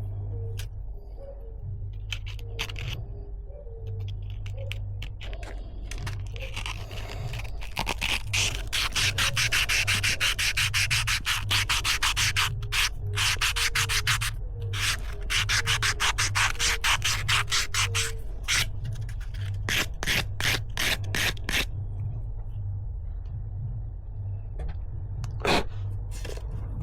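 Copper being rubbed clean with an abrasive in rapid back-and-forth strokes. The strokes are scattered at first, run fast and steady through the middle for about ten seconds, then come in shorter bursts and stop, with one louder stroke near the end.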